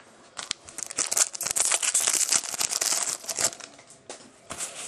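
A trading-card pack wrapper being torn open and crinkled: a dense run of crackling and tearing for about three seconds, then a few softer rustles near the end.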